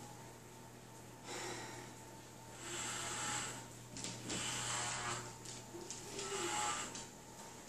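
Corded electric hair clippers humming steadily as they shave long hair off a head. Four louder, rasping passes of about a second each come as the blades cut through the hair.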